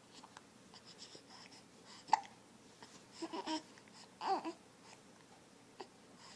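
A small child hiccuping, with one sharp hiccup about two seconds in, followed by a couple of short babbling sounds.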